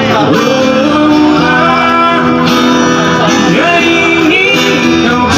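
Music: a song with guitar and singing, playing steadily.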